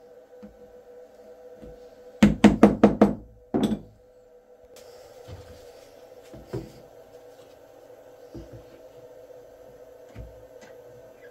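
A quick run of five sharp knocks about two seconds in and one more a moment later, then a few fainter thuds, over a faint steady hum.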